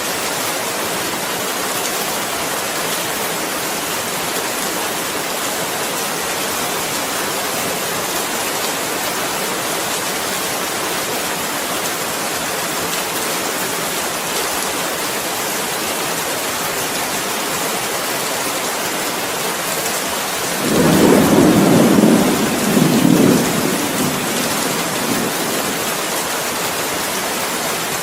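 Steady rain falling, with a rumble of thunder about twenty seconds in that lasts about four seconds in two swells and is louder than the rain.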